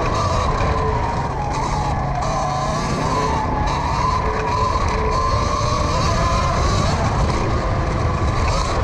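Electric dirt bike motor whining while riding off-road, its pitch rising and falling with the throttle, over heavy wind buffeting on the microphone and a tyre rumble.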